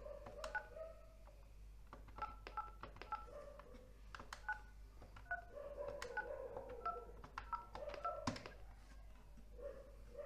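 Keypad of a Huawei F501 GSM landline phone being pressed to dial a number: a quick string of about fifteen short key tones, each with a click of the button.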